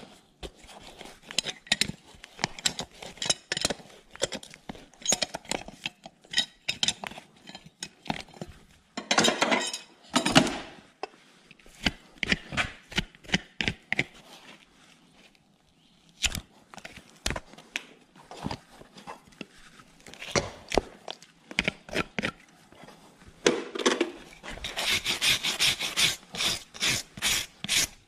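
Farrier's shoe pullers prying a steel horseshoe off a horse's hoof: repeated metallic clicks, clinks and knocks as the nails are drawn and the shoe worked loose. Near the end comes a quick run of evenly spaced scraping strokes as the bare hoof sole is pared.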